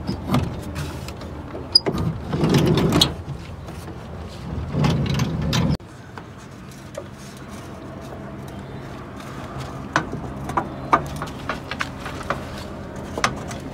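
A Chevrolet Astro minivan's sliding door being slid shut along its track, a noisy rolling stretch that stops abruptly a little before halfway through. Near the end come a few short, light clicks and taps.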